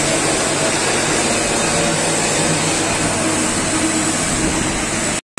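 Steady hiss and hum of TIG argon welding on stainless steel, the welding machine running through the weld, with a split-second dropout near the end.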